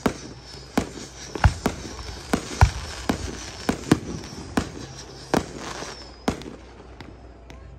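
Aerial fireworks going off: about a dozen sharp bangs at uneven spacing from bursting shells, two of them louder than the rest, with crackling between them.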